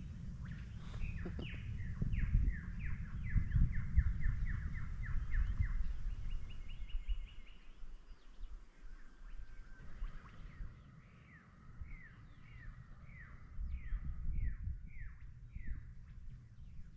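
A bird calling long series of short, downward-sweeping whistled notes, about three a second at first, then a quick run of higher notes, then a slower series of about two a second near the end. A low rumble of wind on the microphone runs underneath.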